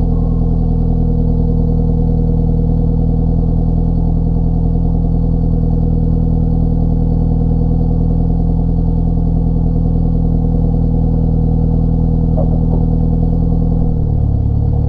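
An engine running steadily at a constant speed, a continuous hum of several fixed pitches, the lowest shifting slightly near the end.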